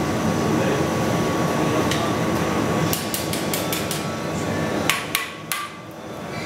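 Steady roar of a glassblowing gas torch's flame, with a quick run of sharp taps about three seconds in and three louder knocks about five seconds in. The roar drops away after the knocks.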